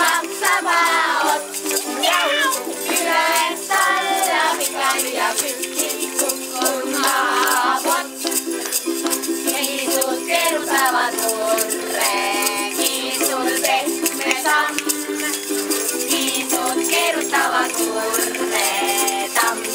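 A song with a singing voice over sustained chords and a steady shaker rhythm.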